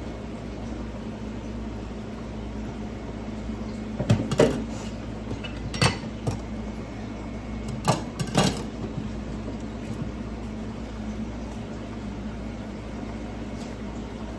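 Kitchen utensils knocking and clattering against cookware, five or so sharp knocks between about four and nine seconds in, over a steady low hum.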